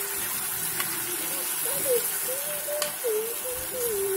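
Spinach and chicken curry bubbling and sizzling in an aluminium pot, with two light clicks, under a person's voice in the background that wavers in pitch.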